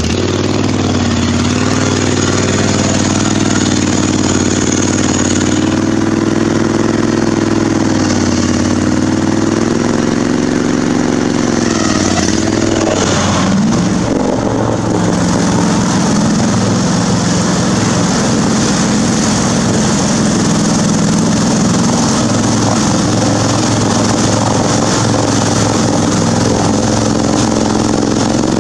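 Riding lawn mower engine running hard without a break, its pitch rising and falling for the first dozen seconds and then settling steadier.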